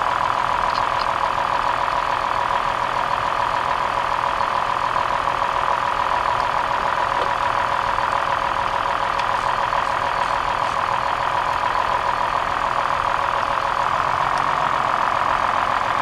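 2003 Toyota Highlander's V6 engine idling steadily while the faulty ignition coil on a misfiring front cylinder is swapped for a new one.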